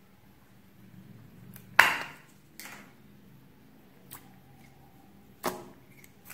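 Snap-on plastic lid of a small store-bought slime tub popped off with a sharp crack about two seconds in, followed by a few lighter clicks of the plastic cup being handled.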